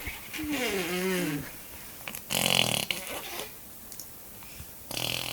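A baby blowing wet raspberries with her lips. A short cooing voice falls in pitch about half a second in, then a loud spluttering buzz comes a little after two seconds, and another buzz starts near the end.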